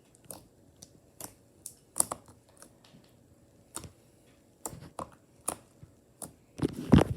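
Slime being squeezed and worked by hand, making irregular sticky clicks and small pops, with a louder run of them near the end.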